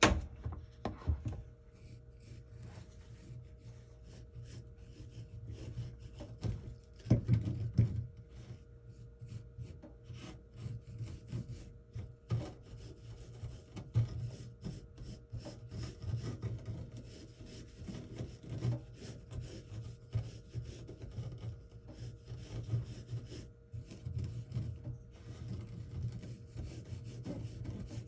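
Cucumbers being rubbed and scraped by hand on a wooden cutting board, a continuous irregular rasping with small knocks and a few louder thuds about seven seconds in.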